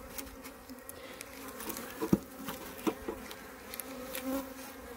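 Honeybees buzzing over an opened hive: a steady hum, with a few light knocks, the clearest about two seconds in and another near three seconds.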